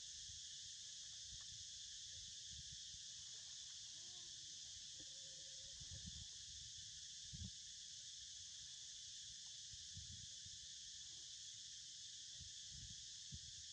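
Steady, high-pitched chorus of insects buzzing in the heat, with a few soft low thumps.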